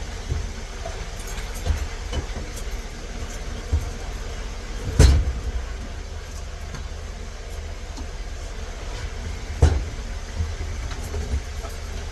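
Tools and small parts being handled and set down on a locksmith's workbench: light clicks and two sharp knocks, about five seconds in and again near ten seconds, over a steady low hum.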